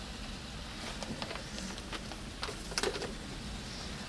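Pasta sizzling softly in a frying pan, with a few light crinkles and taps from a plastic packet of grated Parmesan being shaken out and a wooden spoon starting to stir; the sharpest taps come near three seconds in.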